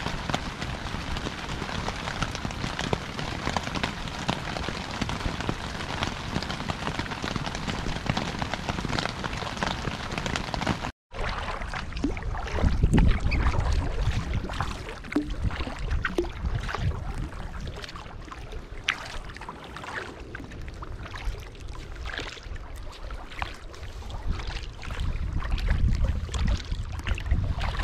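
Heavy rain falling, a steady dense hiss. About 11 s in it cuts off abruptly and is replaced by gusty wind buffeting the microphone, with scattered drips or splashes.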